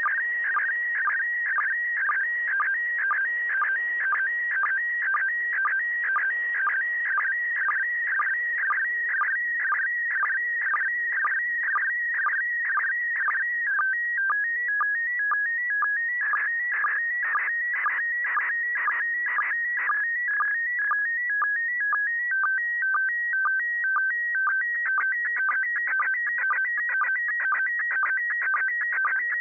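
Slow-scan television (SSTV) picture signal from the International Space Station, received on an Icom IC-9700 at 145.800 MHz FM. It is a rhythmic, warbling stream of whistling tones pulsing about twice a second. The tone pattern shifts about halfway through as the picture content changes.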